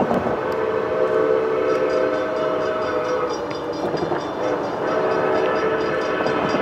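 Whistle of Santa Fe 3751, a 4-8-4 steam locomotive, blowing two long blasts as it approaches: a chord of several steady tones that stops about three seconds in and sounds again about five seconds in.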